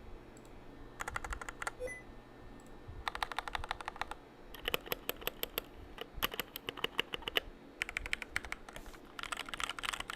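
Typing on a Zeta 68 Pro mechanical keyboard with pre-lubed Gateron Red linear switches and silicone dampening: quick runs of soft keystrokes in bursts of a second or so, with short pauses between them. The sound is smooth and full, with the extra noise dampened out.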